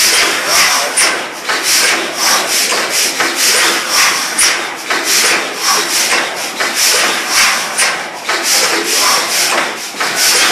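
Snow 600 hp natural-gas compressor engine running steadily: a loud, rhythmic clatter and hiss that repeats several times a second.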